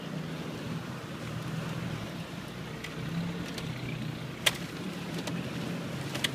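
A 4x4's engine running steadily at low revs, heard from inside the cabin as the vehicle crawls along a muddy track. Two sharp knocks stand out, one about four and a half seconds in and another near the end.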